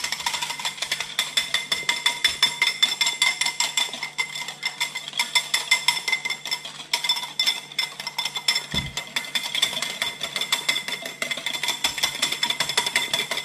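Dalgona coffee mixture of instant coffee, sugar and hot water being beaten by hand in a cup, the utensil clinking rapidly and steadily against the sides.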